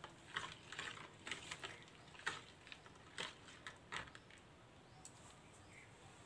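Faint, irregular clicks and taps of a steel spoon against a bowl as boondi is stirred into spiced coriander water, dying away about four seconds in.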